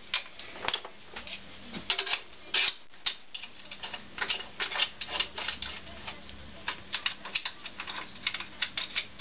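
Irregular clicks and taps of hand tools and parts being handled while fitting carburetors to a motorcycle engine, some in quick clusters, over a faint steady hum.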